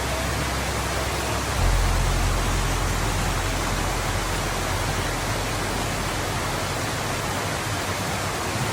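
Steady rushing noise of falling water from a waterfall, with a deeper rumble that strengthens about one and a half seconds in.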